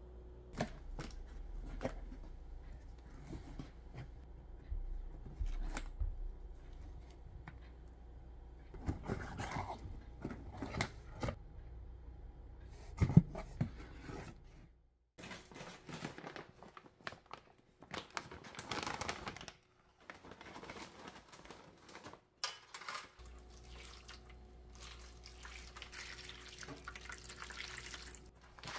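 Close-up kitchen handling sounds: plastic food packaging crinkling, sharp knocks and taps as items are picked up and set down, and hands rummaging through potatoes in a box.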